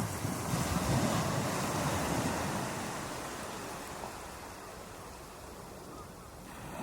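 Ocean waves breaking on a beach: a wave crashes right at the start, is loudest over the next couple of seconds, then slowly washes out and fades.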